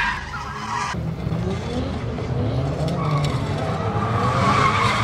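Drifting Nissan S13 Silvia engine revving up and down through the slide, with tyres squealing. The squeal grows stronger about three seconds in.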